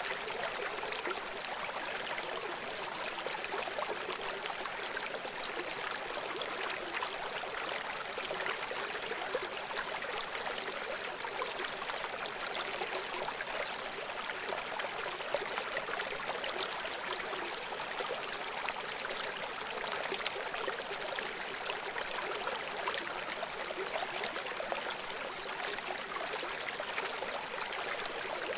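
Running water rushing steadily, an even hiss with no separate splashes or drops.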